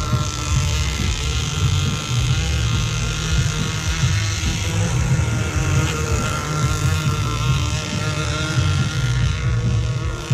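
Radio-controlled racing boats running fast on a lake, their motors giving a steady high whine that wavers slightly in pitch, over a loud, uneven low rumble.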